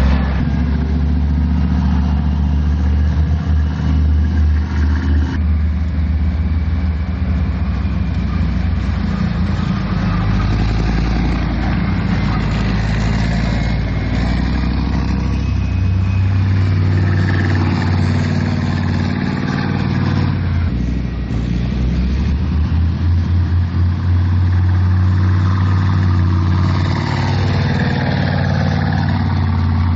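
Leopard 1-family tracked armoured vehicles (a Gepard anti-aircraft tank, then a Bergepanzer 2 recovery tank) driving through deep mud, their MTU V10 diesel engines running steadily under load. The sound changes abruptly about five and twenty-one seconds in.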